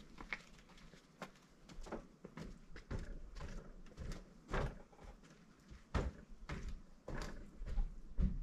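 Scattered footsteps and light knocks from people carrying new plastic windows, irregular and about one a second, with the sharpest knock about six seconds in.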